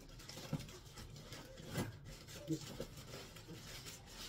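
Clear plastic wrapping rustling and crinkling as it is handled, with a few sharper crackles.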